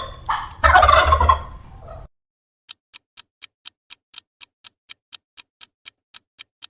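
Turkey gobbling, a rattling call heard twice that ends about two seconds in. Then comes a steady ticking, about four ticks a second.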